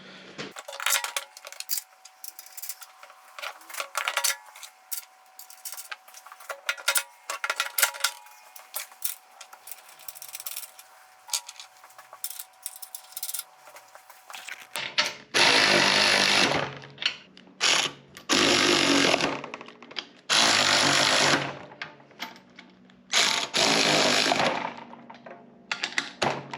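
Small metal clicks and clinks of nuts, washers and wheel hardware being handled and fitted. From about halfway on, a power tool runs in about six short bursts of one to two seconds each, driving on the nuts that hold the jack's rear wheels.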